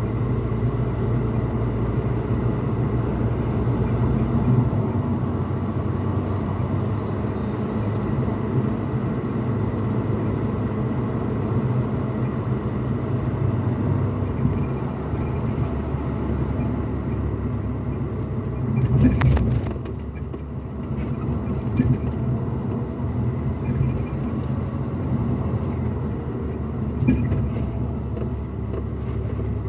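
Pickup truck cabin noise while driving: a steady low rumble of engine and road with a faint hum. There are a few light knocks, and a brief louder rush about two-thirds of the way through.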